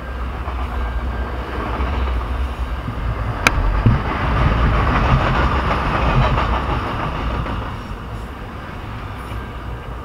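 Freight train's autorack cars rolling past close by: a steady rumble of wheels on rail, with one sharp metallic clank about three and a half seconds in.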